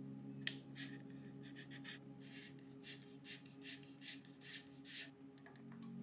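A brake line being worked by hand through a port in a bicycle frame: a sharp click about half a second in, then a run of short scraping rubs, about two a second. Soft background music of steady low notes underneath.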